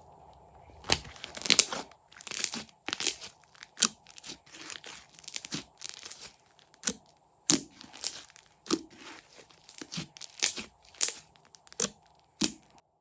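Fluffy slime being squeezed, poked and stretched by hand, giving a run of irregular sticky crackles and pops. The sounds stop just before the end.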